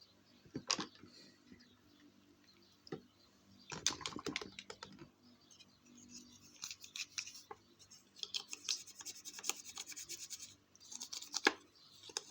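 Irregular scratchy rubbing with light clicks from scrubbing and handling a small clear plastic window insert of a diecast toy van, in short spells.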